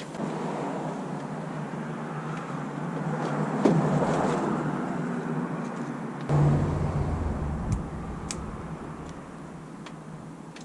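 A car battery being set back into the engine bay: handling noise, a heavy thud about six seconds in as it goes down into the tray, then a few sharp clicks.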